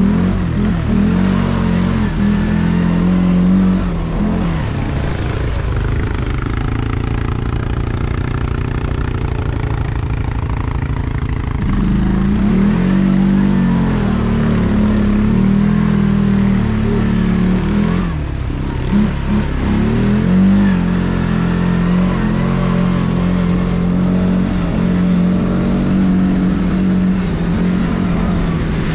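Single-cylinder ATV engine running under load through mud, the revs dropping and picking up again several times as the throttle is worked.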